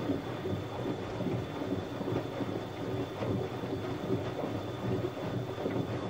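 Siemens Siwamat front-loading washing machine in its wash cycle: the drum turning with water sloshing and churning inside, over a steady low motor hum and a thin high whine.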